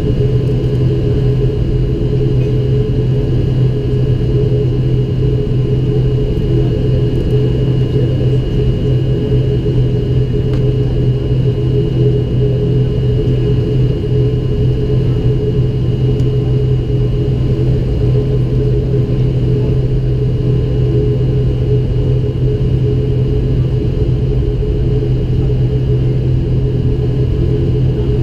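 ATR 72-500's Pratt & Whitney PW127 turboprop engines and six-blade propellers running during taxi, heard inside the cabin: a loud, steady propeller drone with a thin high whine above it.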